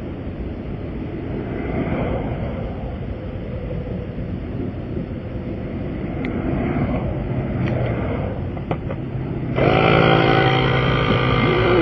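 Highway traffic passing by, a steady rush of tyre noise that swells and fades. About ten seconds in, a much louder, steady, droning motor hum cuts in abruptly.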